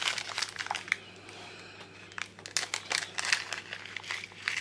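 Small clear plastic bag of glass rhinestones crinkling in quick irregular crackles as fingers work at it, with a short lull about a second in.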